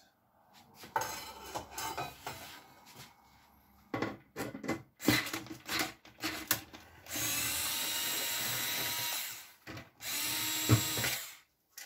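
Cordless screwdriver running to back out the screws of an oven door's top cover, in two steady runs of about two seconds and one second near the end, after a few seconds of clicks and clatter from handling the door and tool.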